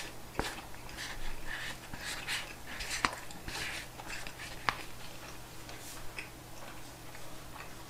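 Close-up eating sounds: wooden chopsticks scraping and clicking against a paper takeout bowl as rice is gathered, with a few sharp clicks, and soft chewing and mouth sounds in between.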